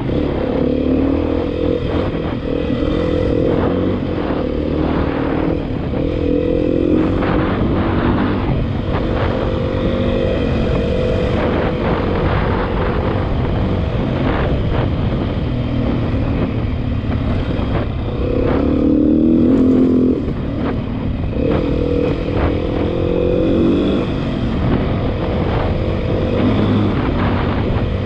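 Beta 500RRS dual-sport motorcycle's single-cylinder four-stroke engine running under way, its pitch rising and falling with the throttle. About two-thirds of the way through it gets louder and climbs for a couple of seconds, then eases off.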